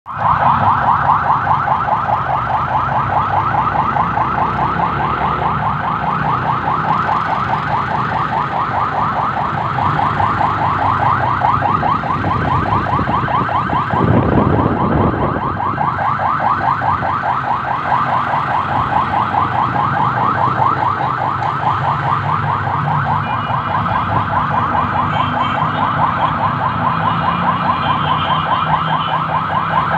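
Electronic siren warbling rapidly and without a break, with a low engine rumble beneath and a brief louder rush about halfway through.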